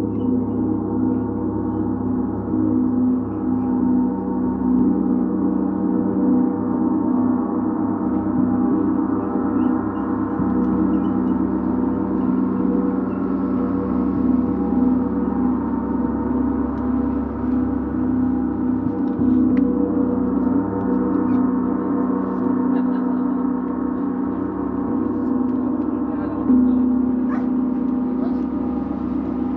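Gong ringing on in a dense mix of long-held, overlapping tones, deepest and strongest in its low hum, with a sudden swell about 26 seconds in.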